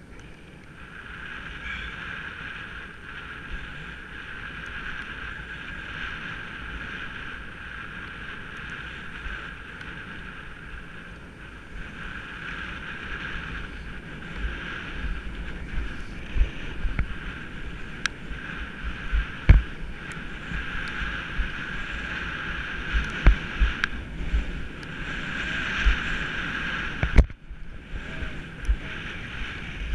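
Skis hissing steadily over snow while wind buffets the microphone, with low thumps growing louder and more frequent in the second half as the run picks up speed. The sound briefly cuts out near the end.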